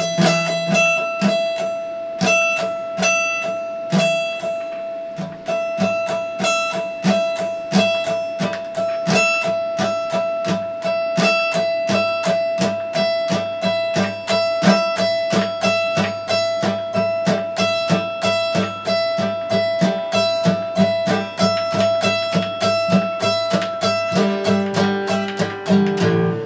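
Acoustic guitar played solo: a quick, even stream of plucked notes over one high note that keeps ringing throughout. The playing stops abruptly at the very end.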